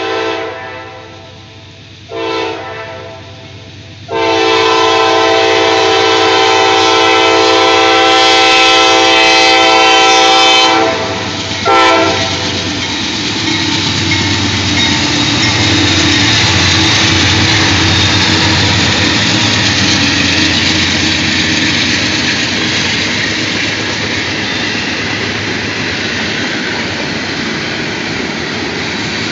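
CSX freight train's diesel locomotive horn sounding for a grade crossing: a blast ending about a second in, a short one about two seconds in, a long one from about four to eleven seconds, and a brief final blast near twelve seconds. Then the two lead locomotives pass close by with a low engine rumble, and the freight cars roll past with steady wheel-on-rail noise and clickety-clack.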